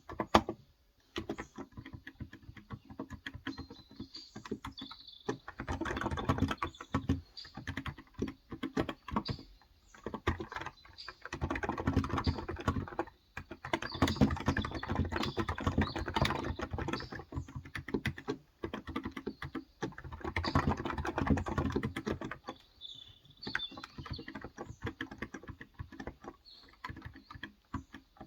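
Typing on a Cox Endeavor tenkeyless keyboard with 35 g electro-capacitive (Topre-style) switches: quick runs of muted keystrokes in bursts, with short pauses between them.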